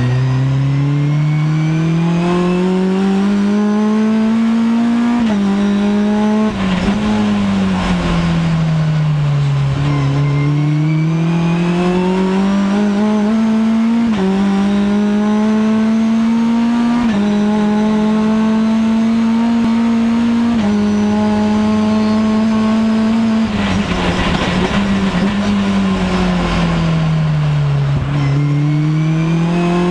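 Onboard sound of a Mitjet race car's engine under racing load: revs climb with quick upshifts, hold steady for a stretch, then fall twice as the car slows for corners before picking up again. Around each slowdown there is a rush of tyre noise.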